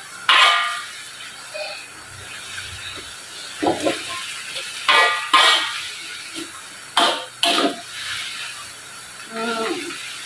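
A metal ladle scraping and tossing leafy greens around a steel wok in about half a dozen separate strokes, with a steady hiss underneath.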